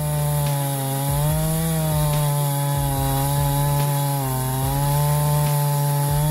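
Jonsard CS2255 55cc two-stroke chainsaw running at high speed while cutting wood, its pitch dipping slightly under load a couple of times.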